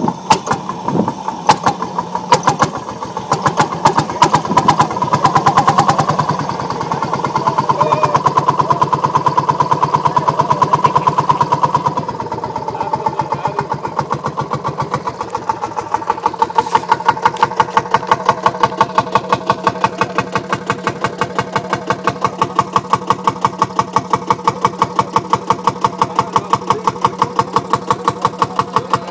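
Vintage kerosene tractor engine just after starting: it fires unevenly for the first few seconds, runs faster for several seconds, then drops about 12 seconds in to a steady idle with even exhaust beats.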